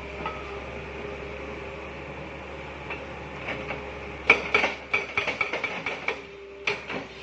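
Concrete building demolition work: a steady machine hum, then a little past halfway a rapid, irregular flurry of sharp knocks and clatters, with one more knock near the end.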